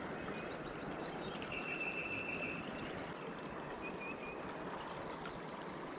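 Steady rush of fast-flowing creek water, running high. A few faint high-pitched trills sound over it at times.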